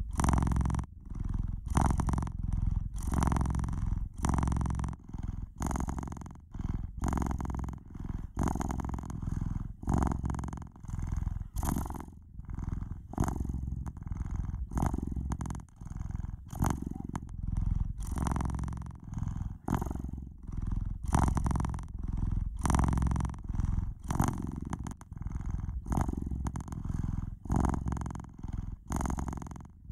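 A domestic cat purring steadily, the low rumble swelling and easing with each breath in and out, about once a second.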